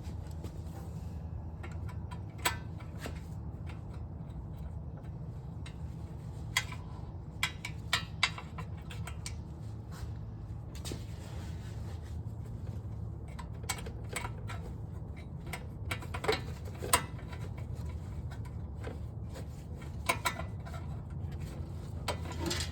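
Scattered metallic clinks and taps of hand tools and bolts being worked on a snowblower engine during reassembly, irregularly spaced, over a steady low hum.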